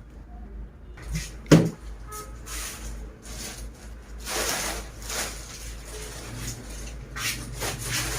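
Worktop handling noises while decorating a cake: a sharp knock about a second and a half in, then scattered light clicks and a couple of short rustling, scraping stretches.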